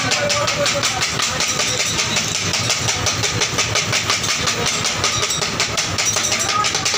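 Two metal spatulas striking a large tawa in a fast, steady rhythm, several strikes a second, as chicken liver is chopped and stirred in sizzling oil.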